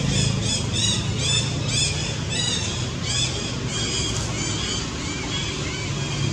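Baby macaque crying: a run of short, high-pitched arched calls, about two a second, fading out near the end.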